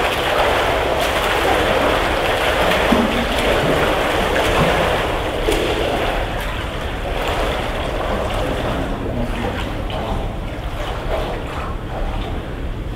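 Swimmers splashing and water lapping in a tiled indoor pool hall: a steady wash of water noise with small splashes, growing a little quieter after about five seconds.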